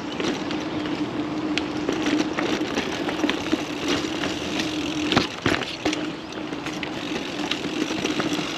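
Mountain bike rolling along a dirt trail: a steady buzz from the bike as it runs, with scattered knocks and rattles from bumps. There is a brief break in the buzz about five seconds in.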